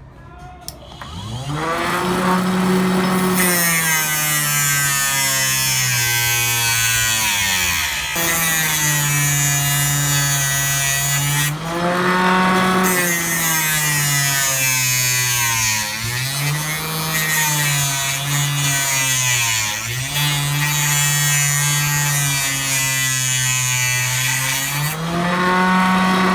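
Mini cutting machine driven by a 12 V 775 DC motor: a rising whine as it spins up about a second in, then a steady high whine whose pitch sags and recovers several times as the disc is loaded cutting into material.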